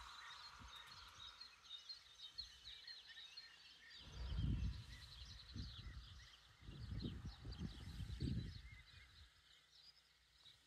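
Birds singing, a dense run of quick high chirps that thins out after about seven seconds. Low rumbling gusts of wind on the microphone come about four seconds in and again around seven to eight seconds, and these are the loudest part.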